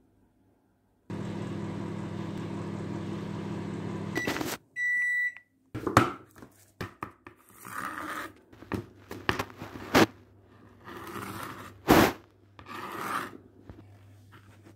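Microwave oven running with a steady hum for about three seconds, then a single beep about five seconds in as its cycle ends. After that, irregular clicks, knocks and rustling as things are handled on a tabletop, with the sharpest knocks about six, ten and twelve seconds in.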